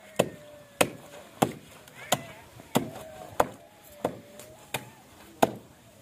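Wooden washing paddle beating wet laundry on a concrete slab: a steady run of about ten sharp slaps, roughly one every two-thirds of a second.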